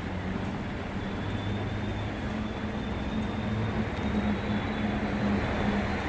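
MLR electric train running, a steady low hum and rumble with a faint high-pitched whine from its electrical equipment through the middle.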